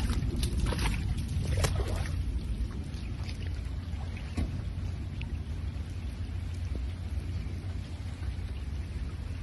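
Rain falling during a storm over a steady low rumble, with a handful of sharp taps in the first two seconds.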